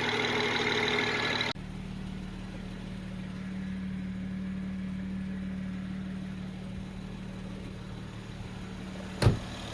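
BMW N54 twin-turbo inline-six idling steadily. About a second and a half in, the sound drops abruptly to a quieter, duller hum, and a single sharp thump comes near the end.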